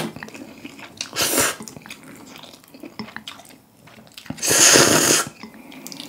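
A person slurping and chewing saucy stir-fried instant noodles. A short slurp comes about a second in and a longer, louder slurp a little past four seconds, with soft wet chewing between.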